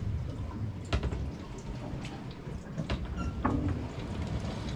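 Galley clatter aboard a sailing yacht under way: a few sharp knocks and clicks, as of pans, dishes or cupboard doors, over a steady low rumble of wind and water.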